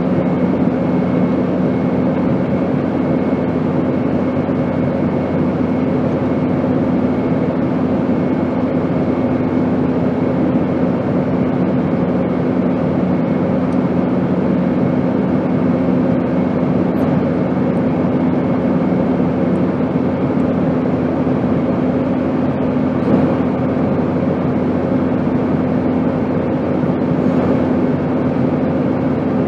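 Airplane in flight: a steady rushing drone with a constant low hum and a faint higher whine, unchanging throughout.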